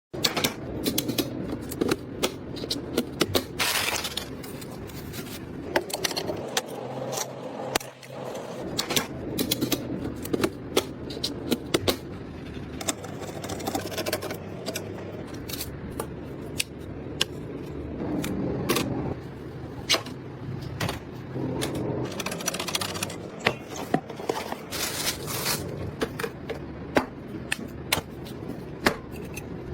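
Irregular clicking, tapping and scraping of computer hardware being handled and fitted together.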